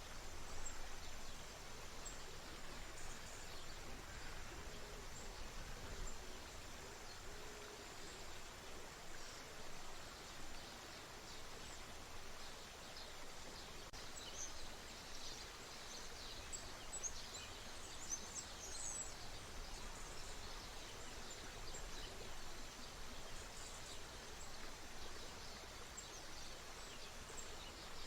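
A stream flowing steadily, with small songbirds chirping over it, the chirping busiest past the middle and again near the end.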